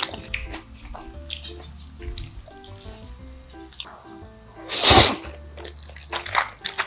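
One loud slurp of black bean noodles (jjajangmyeon) about five seconds in, with small clicks of chewing and chopsticks after it, over soft background music.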